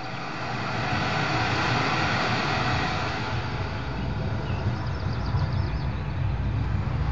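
A deep rumbling, rushing sound effect played over a theatre's sound system. It swells over the first second and then holds steady, with faint high twittering tones coming in near the end.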